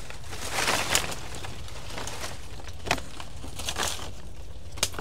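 Dry twigs and leaf litter cracking and crunching, with a cluster of snaps about a second in and a few single sharp cracks later, over a steady low rumble.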